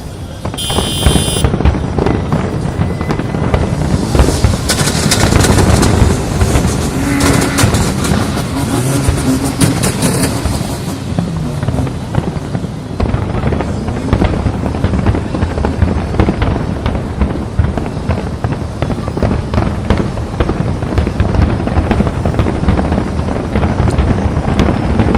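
Fireworks display: a dense, continuous run of booms and crackling bursts, loud throughout.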